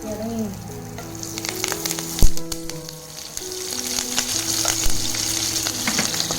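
Tempering seeds (talimpu) frying in hot oil, sizzling and crackling, growing louder about a second in. A single sharp knock a little past two seconds in, likely a utensil striking the pan.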